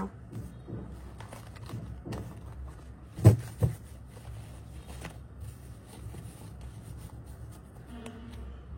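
Quiet handling and shuffling of tarot cards, with scattered soft clicks and two sharper knocks a little over three seconds in.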